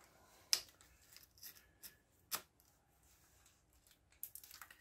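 Kawasaki Z1100 cam chain being handled and drawn up out of its tunnel, the links clinking: a few separate faint metallic clicks, then a quick run of rattling clicks near the end.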